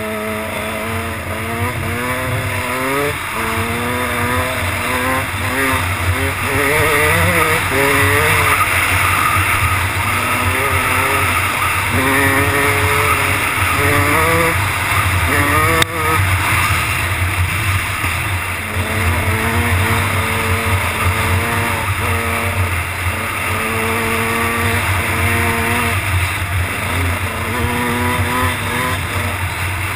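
Kawasaki dirt bike engine revving hard and shifting through the gears at speed, its pitch climbing in steps and falling back several times. Wind rushes over the helmet-mounted microphone throughout.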